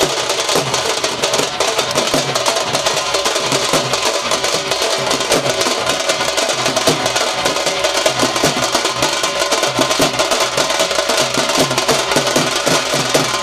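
Drum troupe playing a fast, dense rhythm on rope-tensioned barrel dhols and smaller drums beaten with sticks, the strokes packed closely together.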